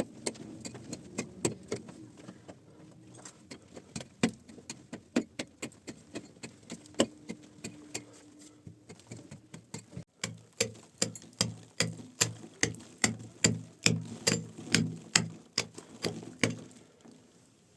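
A steady series of sharp knocks, about two to three a second, sparser at first and heavier and more regular from about halfway, stopping just before the end.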